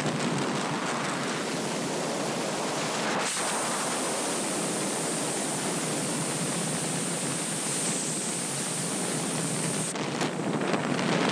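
Steady rush of freefall wind over a wingsuit skydiver's helmet-camera microphone, with a brief knock about three seconds in. Near the end the rush turns uneven and gusty as the parachute is deployed.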